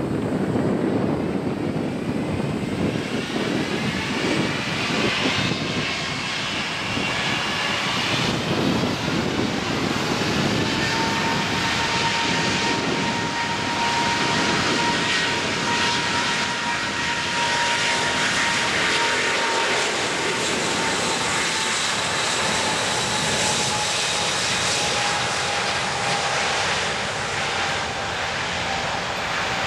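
Boeing 777-200 airliner's twin turbofan engines at takeoff thrust during the takeoff roll: loud, steady jet noise with a whine that rises in pitch over the first few seconds, then a single tone that holds and slowly falls as the jet speeds down the runway.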